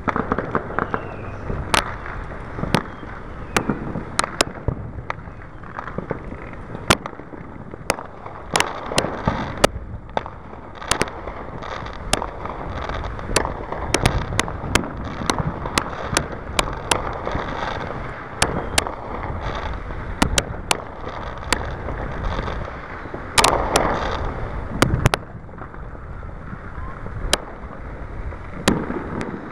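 Fireworks going off: a continuous string of sharp bangs, about one or two a second, over a steady background rumble, with a louder flurry of bangs about three quarters of the way through.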